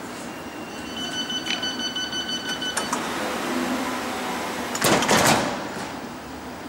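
London Underground S Stock train's door-closing warning: a rapid run of high beeps for about two seconds. About five seconds in, the sliding passenger doors shut with a loud clatter.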